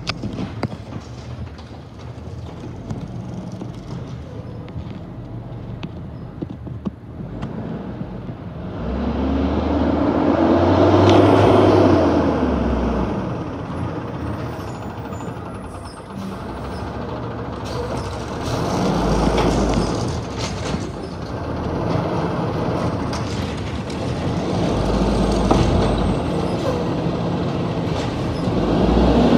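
Automated side-loader garbage truck's diesel engine running and revving, rising and falling in pitch about ten seconds in, with further surges around twenty seconds, around twenty-five seconds and near the end as the truck comes closer.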